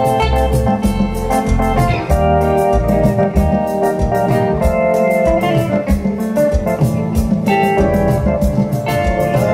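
Live instrumental music: a hollow-body electric guitar played over held organ-like keyboard chords, a bass line and a steady beat.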